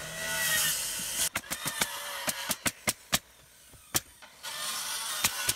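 Pneumatic coil roofing nailer driving nails into plywood roof decking: a string of about a dozen sharp shots starting a little over a second in. A steady hiss with a faint hum runs under them at the start and again near the end.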